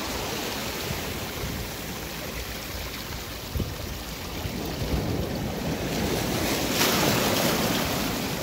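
Hooked Japanese sea bass thrashing and splashing at the water's surface amid churning surf, with the heaviest splashing near the end.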